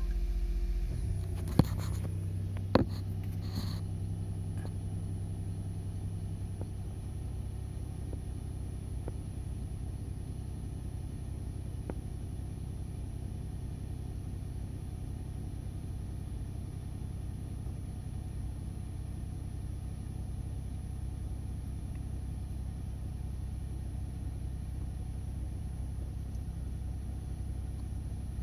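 Nissan Note e-POWER's three-cylinder generator engine idling steadily just after a morning start, at the raised first-minute idle of about 1300 rpm, with a steady low rumble. Two sharp clicks come in the first three seconds, and a humming tone in the engine note fades out about six seconds in. The start-up abnormal noise this engine had been making is much reduced after a fuel-system cleaner and new spark plugs.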